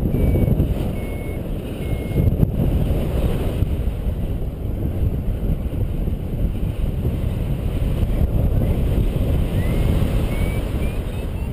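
Steady rush of wind buffeting the microphone in flight, with a paragliding variometer giving short high beeps in the first two seconds and again near the end. Near the end the beeps step up in pitch, the vario's sign of climbing in lift.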